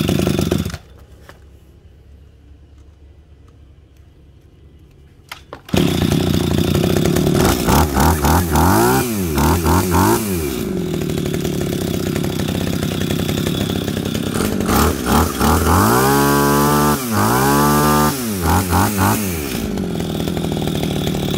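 Small two-stroke engine of a Shindaiwa backpack pole saw running. It cuts out about a second in and starts again about six seconds in, then runs steadily with two runs of quick throttle blips, its pitch rising and falling, a few seconds after the restart and again near the end.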